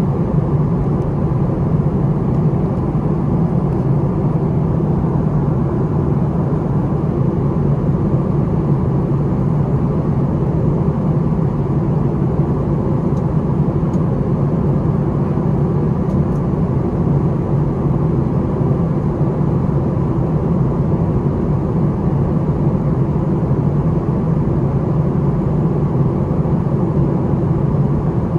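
Steady cabin drone of a Boeing 737-700 in flight, heard from inside the cabin: the CFM56-7B turbofan engines and the rush of airflow make an even, low rumble with a faint steady tone above it.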